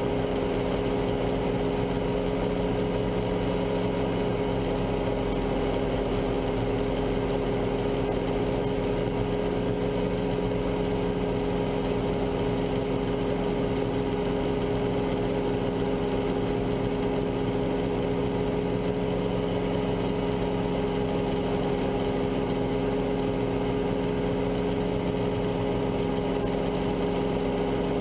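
Guimbal Cabri G2 helicopter heard from inside the cabin in a low hover: its four-cylinder Lycoming piston engine and rotors running steadily, a constant hum made of several held tones over a rushing noise.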